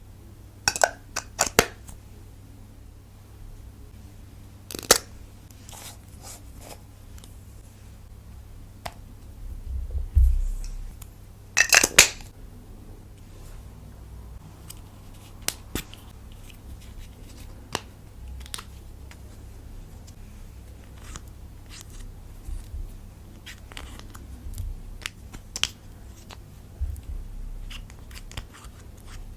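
Scattered sharp clicks and snaps from handling slime and lipsticks while mixing lipstick into clear slime, with the loudest clusters about a second, five seconds and twelve seconds in, over a low steady hum.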